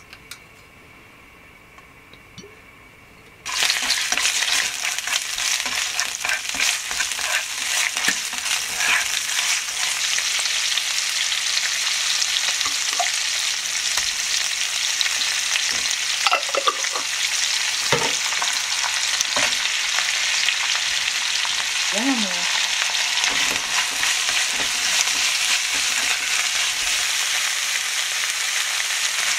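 Chicken hearts and minced garlic frying in perilla oil in a nonstick pan: after a few quiet seconds a loud sizzle starts suddenly and runs on steadily, with taps and scrapes from stirring.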